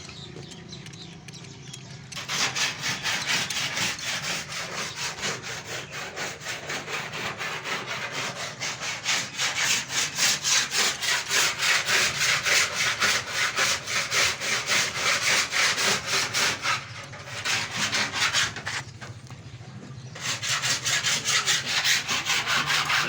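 A hand tool is worked back and forth in quick, rhythmic scraping strokes, several a second, like sawing or rasping. The strokes start about two seconds in, pause briefly around two-thirds of the way through, and resume near the end.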